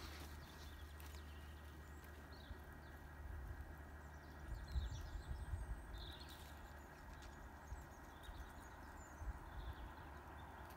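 Faint outdoor ambience: scattered short bird chirps over an uneven low rumble that swells a couple of times.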